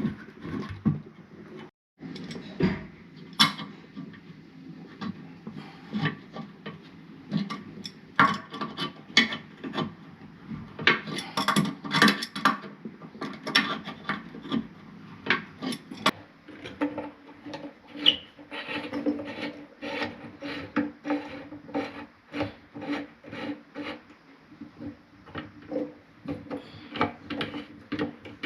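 Repeated irregular scraping and rubbing strokes with small knocks, from hand work on toilet parts; from the middle on a steady low hum runs beneath them.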